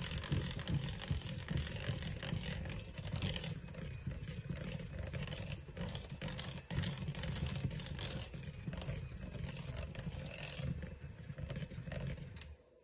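Electric hand mixer running steadily, its beaters churning a thick ricotta cheese mixture in a bowl; the motor cuts off near the end.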